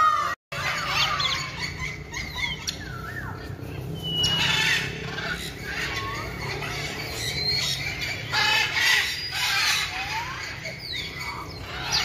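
Many birds calling at once: overlapping chirps, squawks and short whistled glides, with a few flurries of louder calling, over a low steady hum.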